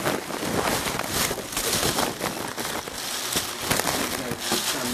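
Dense crackling and rustling noise made up of many quick sharp clicks.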